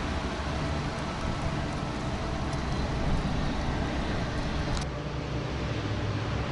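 Strong, gusty wind buffeting the microphone as a dense, flickering low rumble with a hiss above it. There is a brief click about five seconds in.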